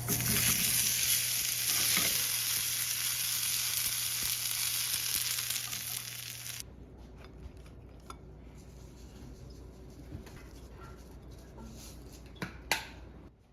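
Food sizzling in a frying pan, a loud even hiss over a steady low hum. About halfway through it cuts off abruptly, leaving a quieter background with a few light clicks and two sharp knocks near the end.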